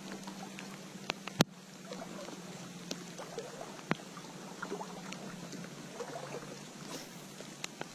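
Trout stream running steadily, with scattered small clicks and knocks and one sharp knock about a second and a half in.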